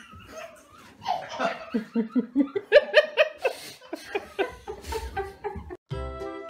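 A person laughing hard in a long run of quick bursts that climb in pitch, loudest midway. Near the end it cuts to cheerful background music with a steady beat.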